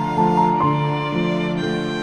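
Slow, gentle background music with sustained string-like melody notes over a low bass.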